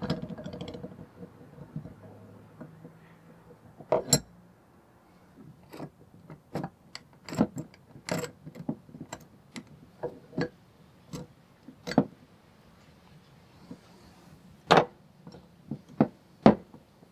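Steel parts of a Dunlap bench vise clicking and knocking together as they are fitted by hand: about a dozen sharp, irregularly spaced clicks and taps, after a short rustle in the first second.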